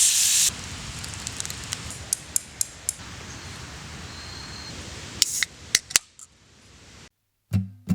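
Wood campfire crackling, with sharp scattered pops over a low steady hiss; a loud hiss fills the first half second. Guitar music comes in near the end.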